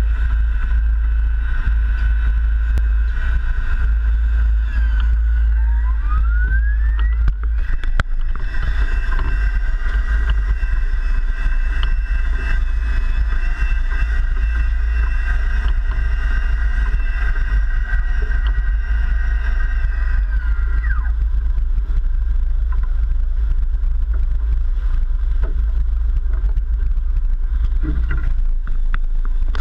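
Sport-fishing boat under way: a steady heavy rumble from the engines and the wind on the microphone. A high whine rises about six seconds in, holds steady, and falls away and stops about twenty seconds in.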